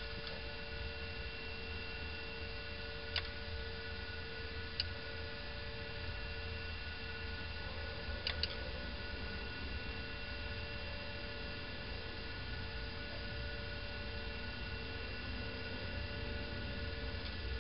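Steady electrical hum with a few faint, isolated clicks.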